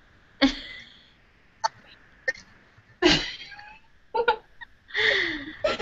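Women laughing in short, separate bursts of giggles and breathy chuckles, about one burst a second.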